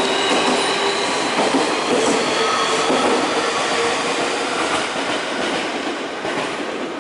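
Electric commuter train rolling along the platform, with its steel wheels squealing in thin steady tones over the running noise and a few clicks from the rail joints; the sound slowly fades toward the end.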